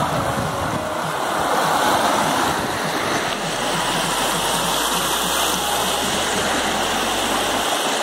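A shallow rocky stream rushing steadily over a small cascade of rocks.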